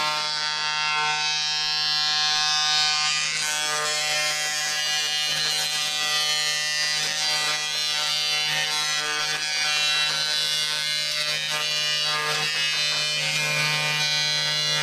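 Woodworking spindle moulder running with a steady whine while a wooden board is fed along its spindle.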